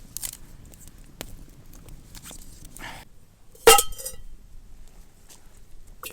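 Camp cookware being handled, with light rustles and small clicks, then one sharp metallic clank a little over halfway through that rings briefly.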